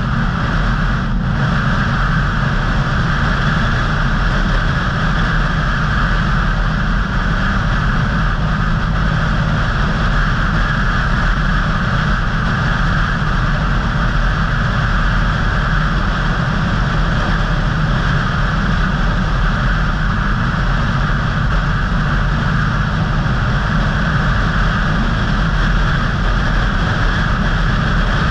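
Steady road noise of a car driving at an even speed, heard from inside the car: tyre and engine rumble with a constant hiss and no changes.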